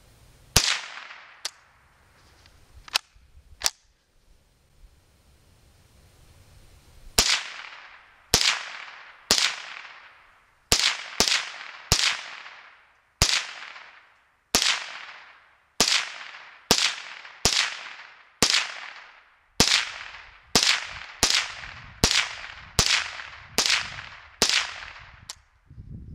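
Ruger 10/22 semi-automatic .22 rimfire rifle fired rapidly, about twenty sharp cracks, each trailing off. After the first four shots there is a gap of a few seconds where a round failed to fire and the bolt was worked by hand, which the shooter takes for a bad round rather than a magazine jam; then shots follow about one a second or faster.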